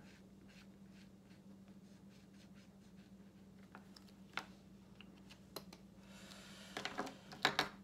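Felt-tip alcohol marker (TouchFive) scratching lightly across paper as a swatch is coloured in, over a steady low hum. Near the end comes a quick run of louder sharp clicks and handling noise, the loudest part.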